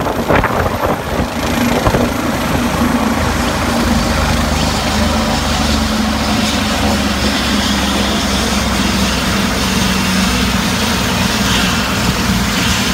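Police helicopter's engine and main rotor running on the ground, a loud, even drone with a steady low hum.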